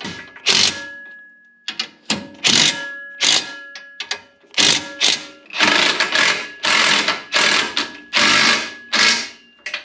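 Hand ratchet wrench worked in a dozen or so quick strokes, about one every half second, each a short burst of clicking, with the metal bracket and frame ringing, while a bolt on a UTV snowplow mount is tightened.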